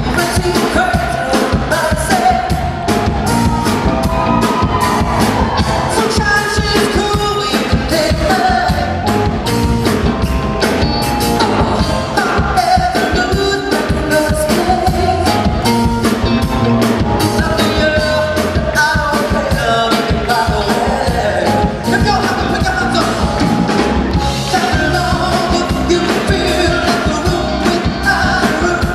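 Male pop singer singing live over a band, with a steady drum beat, in a mash-up of pop songs.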